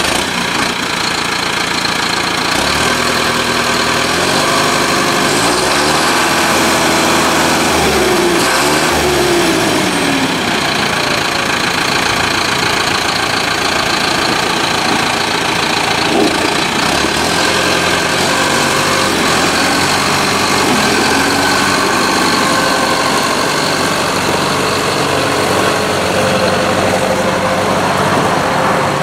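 John Deere 6430's turbocharged four-cylinder diesel (JD 4045) running as the tractor drives, its engine speed rising and falling a few seconds in, then holding steady.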